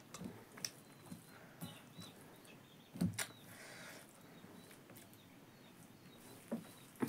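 Fingers squishing and mixing rice with pickle on a steel plate, with a few soft clicks and taps, the clearest about three seconds in.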